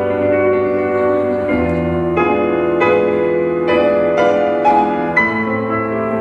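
Piano-led instrumental music, with sustained notes and a new note or chord struck about every half second to a second.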